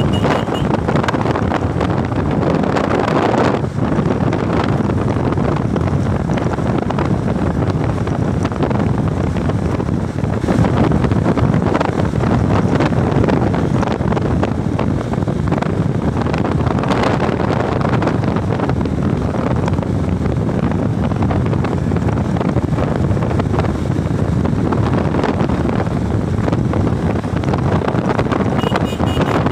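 Wind rushing over the microphone of a moving motorcycle, with the bike's engine and tyre noise underneath.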